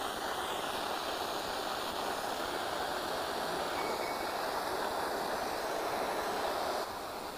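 Acetylene gas from a calcium carbide and water generator burning at a syringe-needle tip with a steady rushing hiss, which drops abruptly in level near the end.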